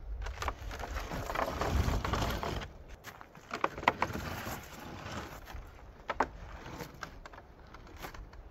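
Footsteps on frozen, snow-dusted ground, then a wooden picnic table being shifted by hand: its legs scrape and it knocks sharply a couple of times.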